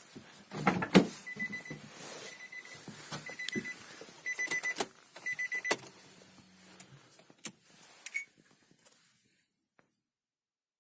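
Scattered clicks and knocks, over a series of short high electronic beeps that come in quick groups about once a second for roughly six seconds.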